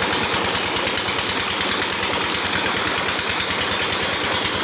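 A small engine or motor running steadily, with a fast, even pulse.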